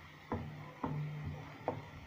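Plastic spatula stirring onions in a non-stick frying pan, knocking against the pan three times at uneven intervals.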